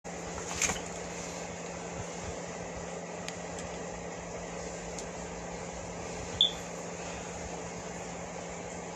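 Steady low hum and hiss of room noise, with a small knock just after the start and a brief sharp click about six and a half seconds in, from a phone being handled.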